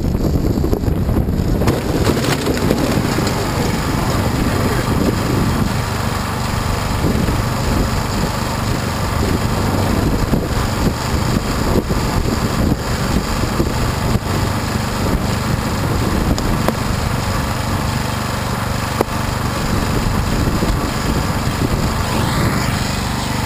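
Generator engine running steadily with a low, even hum. Wind rumbles on the microphone for the first five seconds or so.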